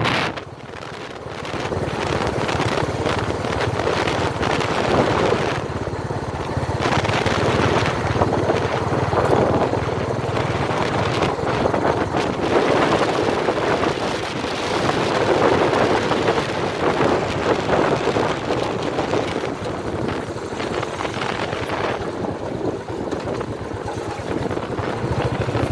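A vehicle driving along a rough dirt track: its engine and tyre rumble, with wind buffeting the microphone. There is a short dip about half a second in, and the sound then runs steadily.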